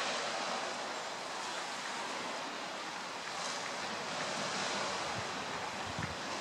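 Steady rushing of sea surf mixed with wind, with no engine or other tone in it. A brief low bump about six seconds in.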